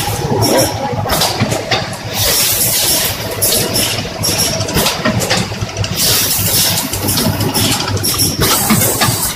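Rotary premade-pouch packaging machine running: a steady mechanical hum and clatter with repeated short hisses.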